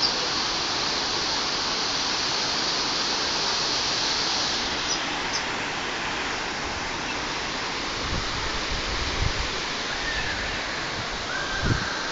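Waterfall pouring steadily, an even rushing noise of falling water, with a few low thumps in the second half.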